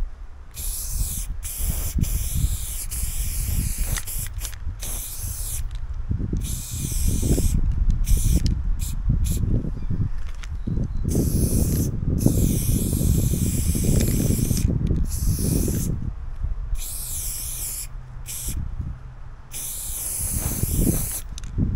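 Aerosol spray paint can hissing in a dozen or so bursts of varying length, stopping and starting sharply between them, as a graffiti piece is painted. A low rumble runs beneath.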